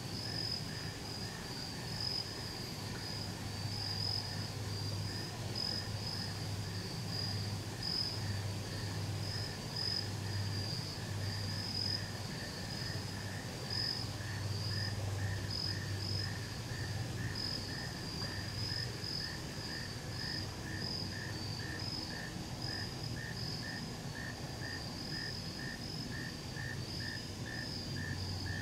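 Crickets chirping in a chorus at dusk: one high-pitched, uneven pulsing chirp and a lower chirp repeating about twice a second, over a faint low hum.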